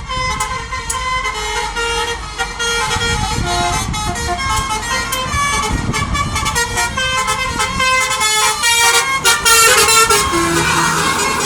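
Indonesian bus 'telolet' musical air horn playing a quick melody of stepped notes over the low running of the bus engine.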